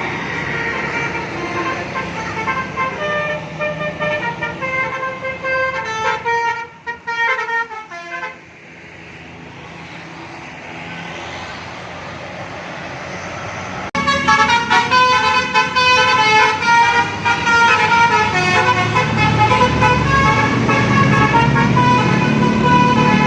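A bus's telolet multi-tone musical air horn plays a quick tune of stepping notes, which stops about eight seconds in. About five seconds later the horn tune starts again suddenly and louder, over a growing low engine rumble.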